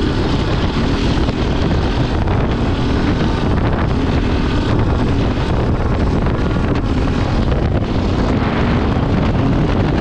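Enduro dirt bike engine running while riding, buried in heavy wind noise on the microphone.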